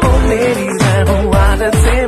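Background music: a Hindi pop song with singing over a steady beat of deep bass hits that fall in pitch.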